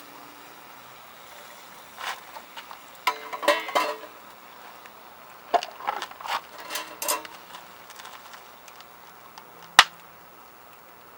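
Metal cookware and utensils clinking and clattering in two short bursts, the clinks ringing briefly, with one sharp crack near the end.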